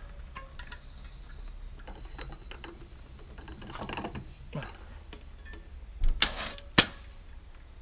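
Floor pump being fitted to a road bike tyre's valve: small clicks and rattles of the pump head on the valve, a pump stroke about four seconds in, then a short loud hiss of air and a sharp click of the head's lever near the end.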